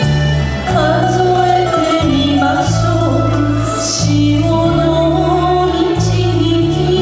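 A woman singing a slow enka ballad into a microphone over amplified backing music, her voice gliding and wavering over held bass notes and cymbal splashes.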